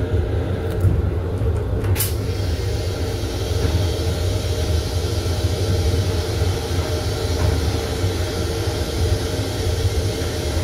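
Steady rumble and hum of a Metro-North M7 electric railcar, heard from inside its small restroom, with a single faint click about two seconds in.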